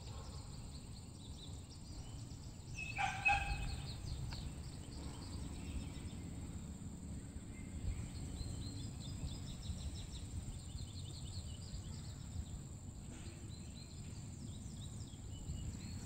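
Outdoor ambience of scattered faint bird chirps over a low rumble, with one louder bird call about three seconds in.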